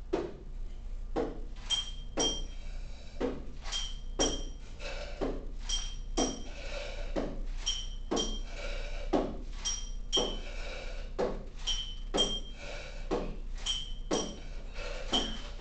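Small percussion ensemble playing hand percussion in a steady rhythm: short knocks about twice a second, with a pair of bright metallic clinks every two seconds or so.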